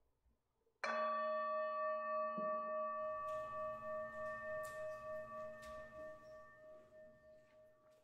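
A singing bowl struck once about a second in, ringing out with a slow wavering pulse as it fades over about seven seconds.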